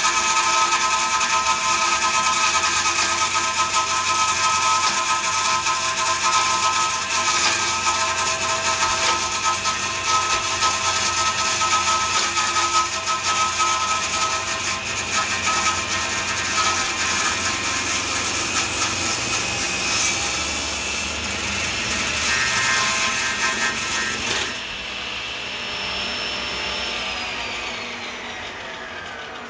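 Table saw running with its blade cutting into a teak post that a hand drill turns on a table-saw lathe jig: a steady high whine with scratchy cutting noise. About 24 seconds in the cutting stops and the saw's whine falls steadily in pitch as the blade spins down.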